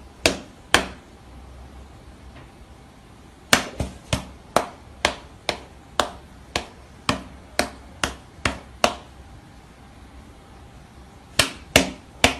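A Bengal cat batting with its front paws at a person's raised hand, each hit a sharp tap or slap. Two hits come near the start, then a quick run of about two a second, then a few more near the end.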